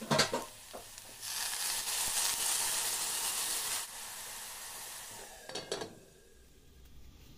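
Water poured into a hot aluminium cauldron of oil, meatballs and vegetables: a few metal clanks, then a loud sizzling hiss that eases after a couple of seconds to a softer sizzle. Near the end the metal lid clanks onto the pot and the sizzling is muffled.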